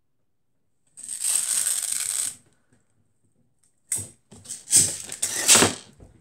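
Metal pins of a pin-art toy sliding and rattling in their frame: one long shush about a second in, then a run of shorter rattles and clicks near the end.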